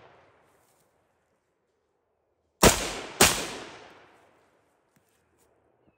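Two gunshots about half a second apart, each trailing off in an echo over about a second, fired at a wild hog.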